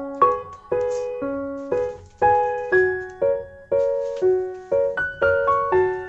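Background piano music: a calm melody of single notes and small chords struck about twice a second, each ringing and fading before the next.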